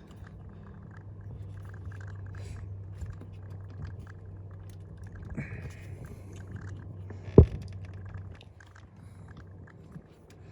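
Hands working blind in an engine bay, fumbling at an ignition coil's wiring connector: faint scraping and small clicks over a steady low hum, with one sharp knock about seven and a half seconds in.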